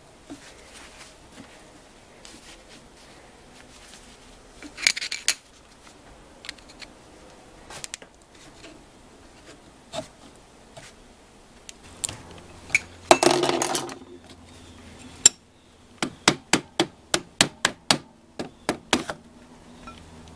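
Metal parts of a cut-open electronic EGR valve being worked apart with hand tools: scattered clicks and a brief scrape, then near the end a quick run of about a dozen sharp metallic taps, about four a second, as the pieces are knocked loose.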